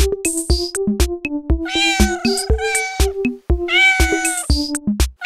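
Electronic children's backing music with a drum-machine beat and short bass notes. Twice, at about two and four seconds in, a long high cry with a slight bend in pitch sounds over it.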